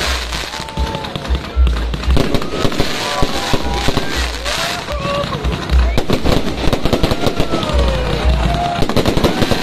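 Aerial fireworks going off: repeated deep booms with dense crackling and popping between them, over background voices and music.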